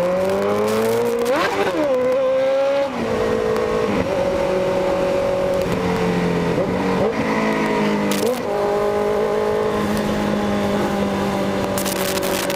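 Loud motorcycle engine accelerating. Its pitch climbs to a sharp rev about one and a half seconds in, drops at a gear change near three seconds, climbs again to another shift a little after eight seconds, then holds steady while cruising.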